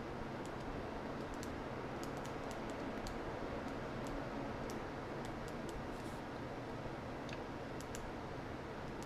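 Computer keyboard keys and mouse clicks tapping irregularly, a couple a second, over a steady background hiss.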